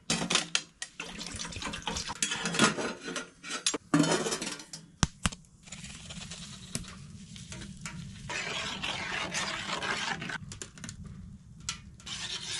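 Liquid poured into a steel pot on a wood stove, with paper cocoa-mix packets rustling and clinks against the pot, and a longer steady pour near the end.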